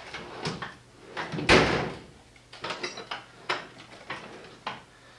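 A string of knocks and clatters, loudest a single heavy bang about a second and a half in, followed by several lighter clicks.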